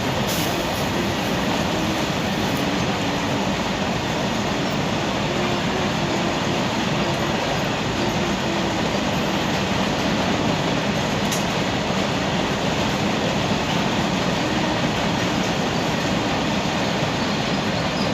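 Indian Railways train passing close by, a steady loud rumble of wheels on the rails and carriages rolling past with no horn sounding.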